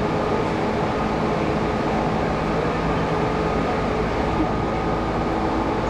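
Tobu Railway electric commuter train running at speed, heard from inside the carriage: a steady rumble from the wheels and track with a steady hum of several tones over it.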